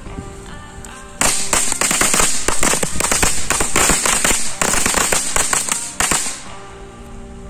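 A firecracker going off in a rapid string of sharp cracks and pops for about five seconds, starting about a second in and stopping suddenly, over background music.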